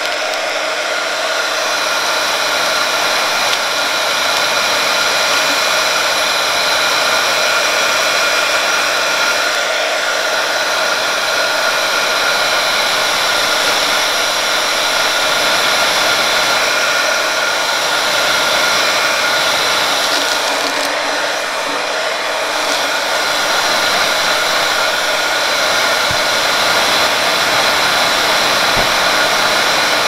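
Handheld electric heat gun blowing hot air steadily over a shrink-wrapped sublimation tumbler, shrinking the wrap tight: a continuous rush of air with a steady fan whine.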